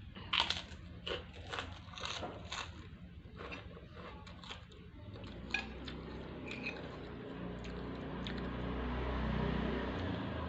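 Close-up eating: wet chewing and mouth smacks on a mouthful of rice and beef rawon, with short clicks, in the first half. In the second half a low steady rumble swells and eases off.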